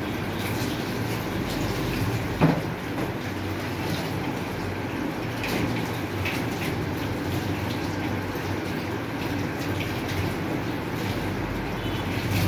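Water poured from a mug over a wet dog, splashing and running into a galvanized metal tub, over a steady low hum. A single sharp knock about two and a half seconds in.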